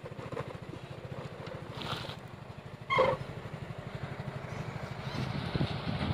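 Hino FM 260 Ti truck's diesel engine running with a steady, even low pulse, getting a little louder toward the end. About three seconds in there is one short, loud, pitched blip.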